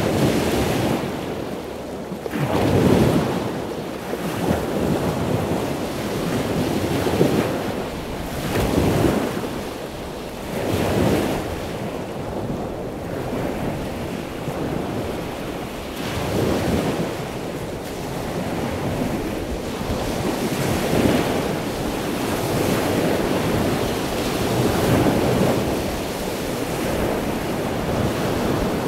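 Heavy ocean surf with strong wind blowing across the microphone, swelling and easing every second or two.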